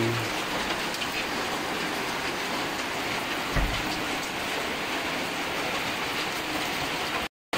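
Chicken pieces deep-frying in hot oil in a large wok over a wood fire, giving a steady sizzle, with one dull thump about three and a half seconds in.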